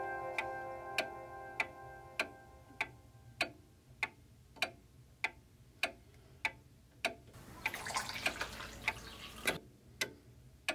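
A clock ticking steadily, a little under two ticks a second, while sustained music fades out over the first two seconds. About seven seconds in, water pours for a couple of seconds.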